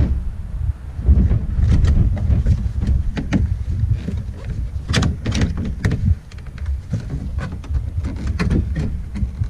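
Wind rumbling on the microphone, with scattered knocks and clicks of the plastic tail light assembly being pushed and wiggled back into its opening.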